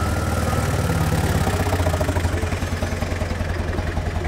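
Pickup truck's engine idling with a steady low throb.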